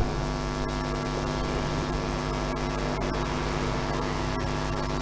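Steady electrical mains hum, a low buzz with many evenly spaced overtones, with a few faint light clicks from the plastic toy revolver being handled.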